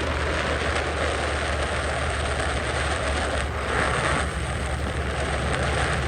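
Fox-body Mustang driving at cruising speed on the highway: a steady low rumble of engine and road noise, with a faint steady whine that settles in about half a second in.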